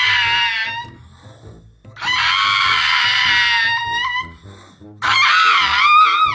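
A dog giving three long, high yowling howls, each about a second and a half, the last one wavering up and down before trailing off, over background music with a steady beat.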